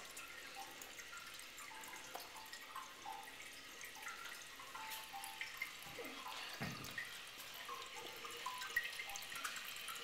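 Faint dripping and trickling of water inside an open toilet tank as it refills, with one short falling sound about seven seconds in.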